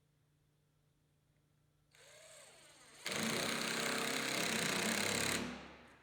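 Power drill running for about two seconds at full speed, after a short, quieter spin-up, then stopping.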